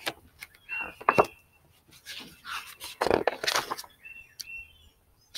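A paper picture book being handled, its pages rustling in several bursts, with a few short bird chirps about a second in and again near the end.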